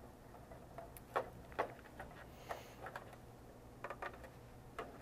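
Faint, scattered light clicks and taps of a battery pack and its wire being pressed into the plastic battery compartment of a GSM alarm module.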